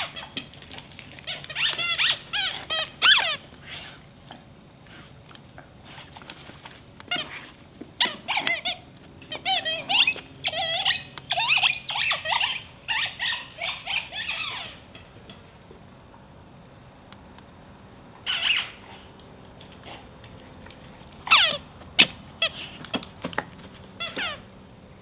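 Squeaky dog toy squealing in quick, high-pitched bursts as an English Bull Terrier chews and mouths it, with pauses between bouts of chewing.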